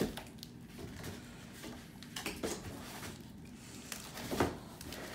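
Packaging being handled while a keyboard and its cable are taken out of the box: soft rustling with a few knocks, the loudest near the start, about two and a half seconds in and about four and a half seconds in.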